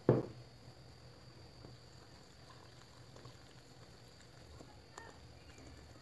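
A knock at the very start, then a wire whisk faintly stirring thick cake batter in a glass bowl, with small scattered ticks.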